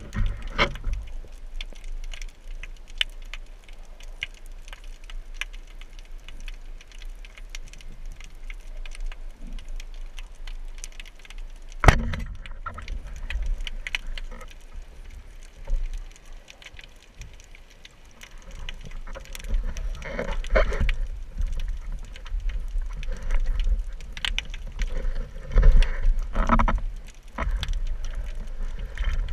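Underwater sound picked up by a camera in its housing: a low rumble with many scattered sharp clicks and crackles, a loud knock about twelve seconds in, and louder irregular bursts of noise in the second half.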